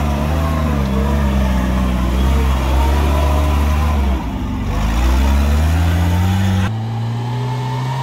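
Off-road 4x4's engine revving hard under heavy throttle on a muddy climb, its pitch wavering and dipping about four seconds in before rising again. Near the end it cuts abruptly to a steadier, lower engine note.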